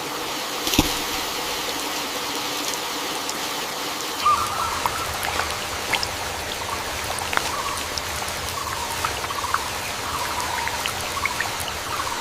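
Heavy tropical rain falling steadily, with scattered drips and a sharp knock about a second in; from about four seconds in a low rumble joins the rain.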